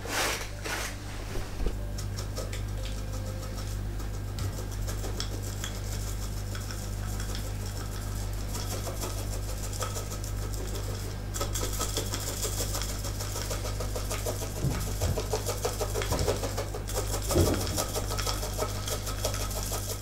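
Rapid, steady tapping and rattling of a mesh sieve as powdered sugar is shaken through it over a tray of apple cake, with a low steady hum underneath.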